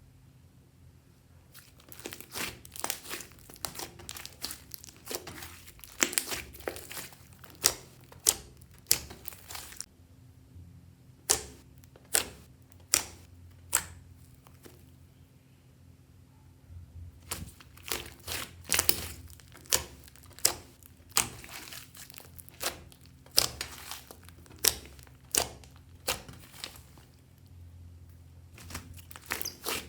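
Slime made of clear slime mixed with makeup and clay, being kneaded and pressed by hand. It makes irregular sharp clicks and pops with crinkly squishing in between, and a few brief pauses.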